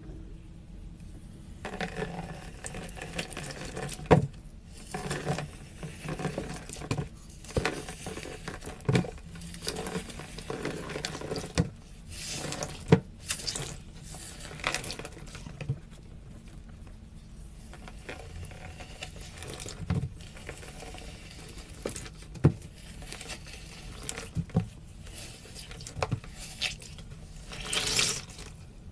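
Glitter-coated dry floral foam being crushed and crumbled by hand: irregular crunching and crackling with sharp snaps, the loudest about four, thirteen and twenty-two seconds in, and a denser run of crackling near the end.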